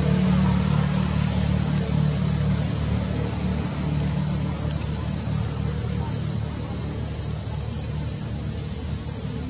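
A steady low engine hum, with a constant high-pitched drone above it.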